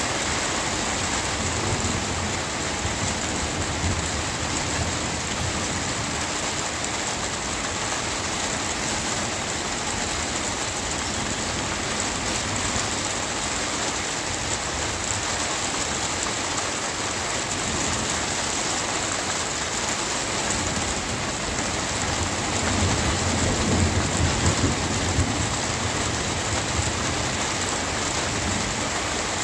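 Steady rain falling, with a low roll of thunder that swells and fades about three-quarters of the way through and a fainter rumble in the first few seconds.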